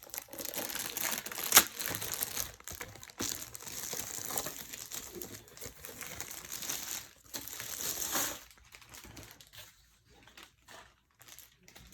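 Plastic packaging crinkling and crackling as it is handled, with one sharper loud crackle about a second and a half in; it thins to a few faint rustles and clicks over the last few seconds.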